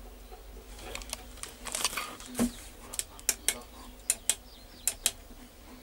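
Irregular sharp clicks, several a second, from the buttons of a combine harvester's control joystick being pressed.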